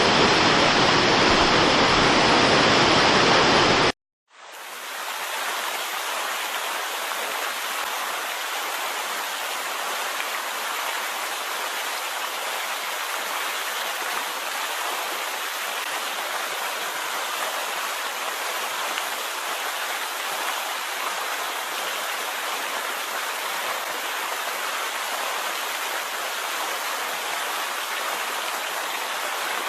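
Steady rushing of a waterfall, an even, unbroken hiss of falling water. A louder sound breaks off abruptly about four seconds in, and after a moment of silence the water noise comes in.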